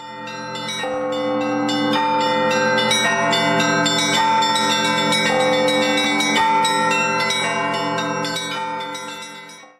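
Intro music: a melody of sustained pitched notes, sounding like bells or chimes, that change about once a second. It fades in at the start and cuts off abruptly near the end.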